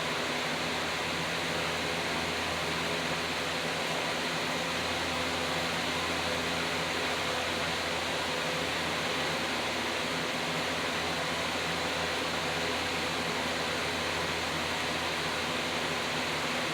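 Steady hiss with a low, even hum underneath and no distinct events.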